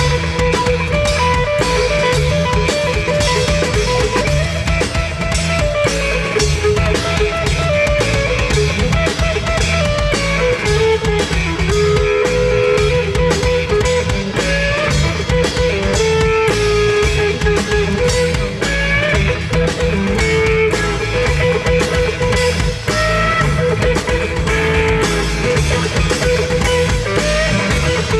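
A live rock band playing electric guitars over a drum kit, with a lead melody line bending up and down above a steady beat.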